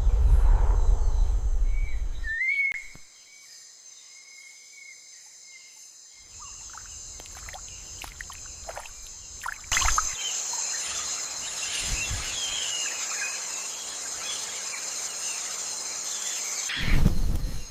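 Jungle ambience: a steady high-pitched insect drone with scattered bird chirps, opening with a low rumble for about two seconds. The insect drone and chirping grow much louder about ten seconds in, and another low rumble comes near the end.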